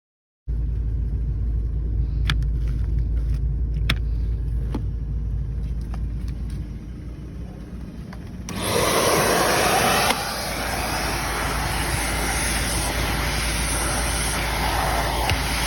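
A steady low rumble with a few sharp clicks, then about eight seconds in a Karcher WD 2 Plus wet and dry vacuum's motor starts up and runs with a loud, steady rushing noise.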